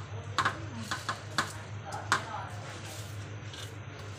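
Soaked rice being tipped and pushed by hand off a steel plate into a pot of boiling water, with a few sharp metal clinks of plate against pot in the first two seconds, over a steady low hum.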